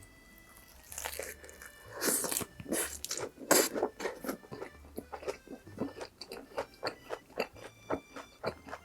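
Close-miked chewing of a mouthful of cheese dakgalbi: a few louder bites and crunches in the first seconds, then steady wet chewing at about two strokes a second.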